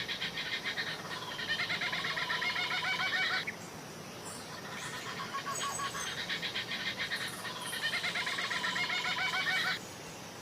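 An animal call: rapid, evenly repeated chirping notes in two long bouts of a few seconds each. The first bout ends about three seconds in, and the second starts about five seconds in and stops near the end.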